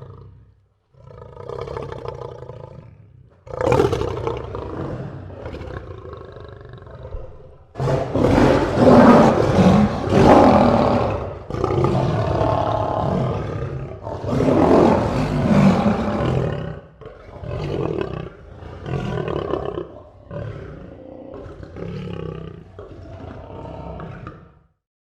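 Lion roaring: a series of about ten roars with short breaks, the loudest and longest in the middle, the later ones shorter.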